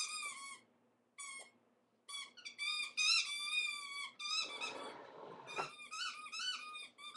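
Plush squeaky toy squeaking again and again as a Bernese mountain dog puppy bites and chews it. The squeaks come in quick runs with short pauses, and there is about a second of rustling noise midway.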